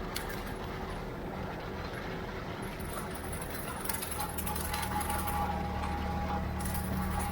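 Ford 3600 tractor engine running steadily. About four seconds in its hum grows a little louder and more even, with scattered light clicks and rattles over it.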